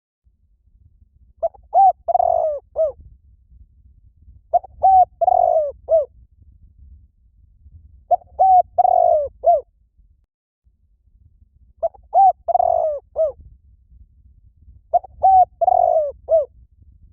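Spotted dove cooing: five like phrases about three and a half seconds apart, each a few short coos around one longer, drawn-out note. It is a lure call for drawing in doves.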